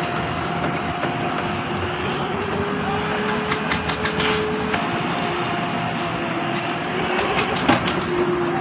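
An engine running steadily with a faint whine, and a few scattered clicks and knocks over it.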